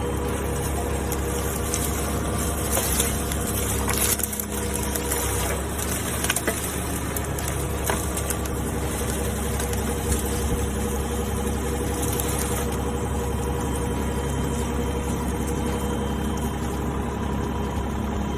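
Yanmar VIO20-1 mini excavator's diesel engine running steadily, with a few short knocks in the first half.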